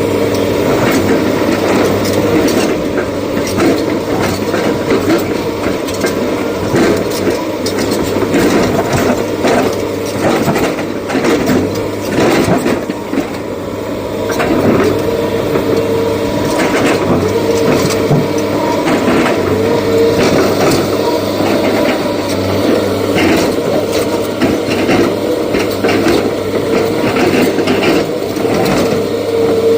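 SANY excavator's diesel engine running steadily under load, with a held whine over it and frequent clanks and clatter as the machine digs and loads.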